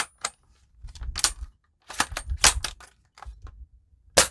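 Plastic toy rifle being handled: groups of clicks and rattles from its parts, ending in one sharp, loud click near the end.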